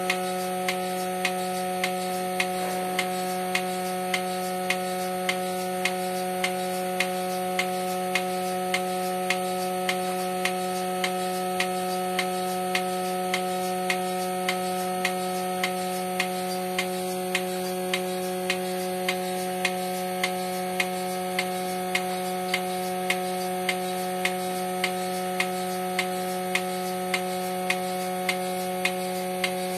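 Bucket milking machine running on a cow. The machine hums steadily, and the pulsator on the milk can's lid clicks regularly, about one and a half times a second, as it alternates the vacuum to the teat cups.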